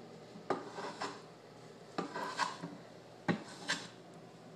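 Hand plane shaving the edges of a wooden box: about six quick strokes in loose pairs, each a short rasping swish of the blade cutting wood.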